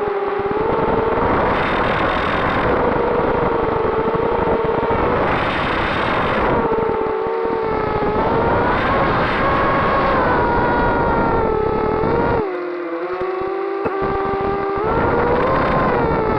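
FPV quadcopter's brushless motors and propellers whining in flight, the pitch rising and falling with the throttle. A loud rushing noise runs under the whine and drops away for a couple of seconds about twelve seconds in.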